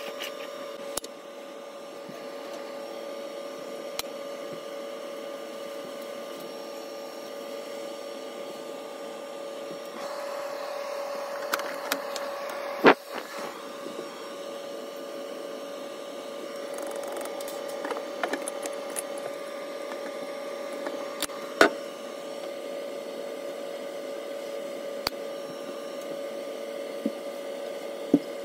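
Aluminium Bialetti Moka Express pot being handled on a gas stove: scattered sharp metal clicks and clinks, the loudest about 13 seconds in as the burner is lit, over a steady hum throughout.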